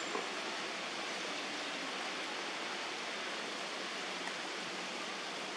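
A steady, even hiss of outdoor background noise, with one faint tick just after the start. No monkey calls are heard.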